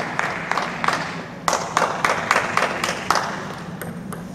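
Scattered hand clapping that thins out to a few claps and dies away after about three seconds.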